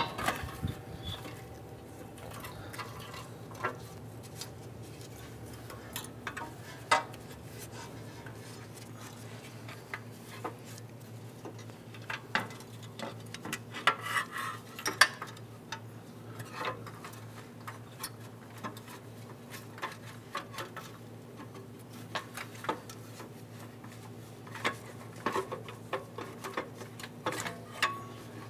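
Scattered metal clinks and knocks as a catalytic converter and exhaust manifold assembly is worked by hand up into place against the engine, over a steady low hum.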